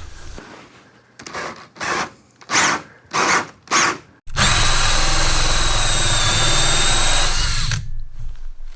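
Power drill running a 2-inch hole saw into cedar. First come five short bursts as the saw starts to bite, then about three and a half seconds of steady cutting with a high whine, which stops near the end.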